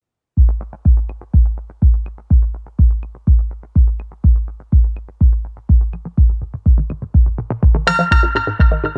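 Background electronic music with a steady deep kick-drum beat, about two beats a second; a bright synth chord comes in near the end.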